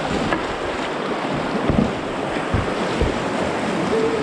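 Rushing whitewater of a river rapid, a steady churning hiss, with wind buffeting the microphone in a few low thumps. A short sung note comes in near the end.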